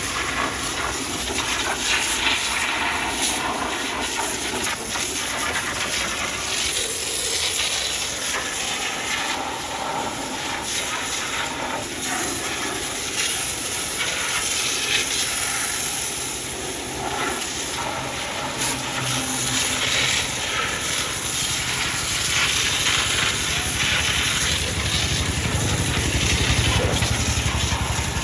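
Water jet spraying in a steady hiss that swells and eases as the spray moves. A low rumble builds near the end.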